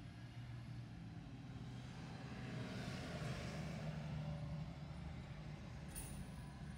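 Steady low engine idle heard from inside a stopped car, with a vehicle passing about three seconds in, its noise swelling and fading.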